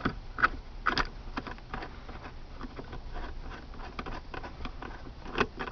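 Light, irregular metal clicks and rattles from a 14 mm socket on an extension as the loosened seat-belt buckle anchor bolt is unscrewed.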